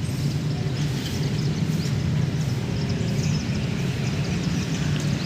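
Two-stroke brush cutter engine running at a steady speed, with short scratchy ticks on top as the cutting line strikes the grass.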